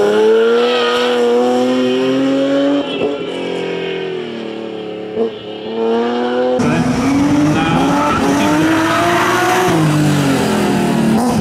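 Rally BMW M3 E36's straight-six engine revving hard under load, its pitch climbing and then breaking at gear changes and lifts. About two-thirds through, the sound cuts suddenly to the car sliding through a turn, the engine rising and falling with tyres squealing.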